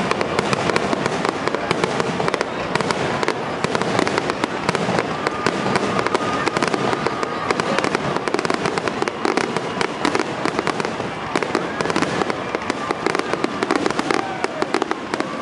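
Dense barrage of aerial firework shells bursting, many sharp reports and crackles overlapping in quick succession without a break.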